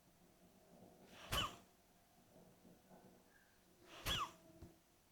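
Two sharp, forceful exhalations through the nose, about two and a half seconds apart: strokes of Kapalbhati pranayama breathing, each breath driven out by a snap of the abdomen.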